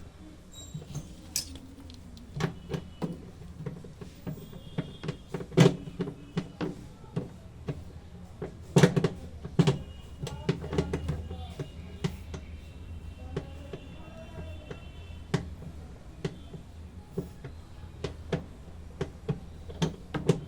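Irregular knocks, clicks and clatter of hand tools and metal parts being handled during washing-machine repair work, some strikes much louder than others, over a steady low hum.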